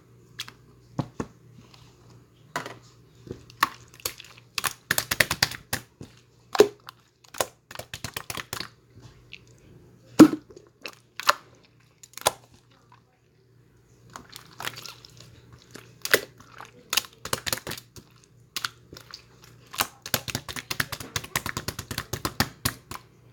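Slime being squeezed and pressed by hand, giving irregular sharp pops and dense runs of crackling clicks, with a short pause a little past the middle.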